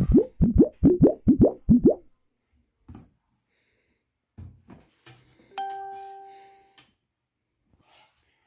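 Editing sound effects: a quick run of about eight short rising bloops in the first two seconds, then a single bell-like chime about five and a half seconds in that rings out and fades over about a second.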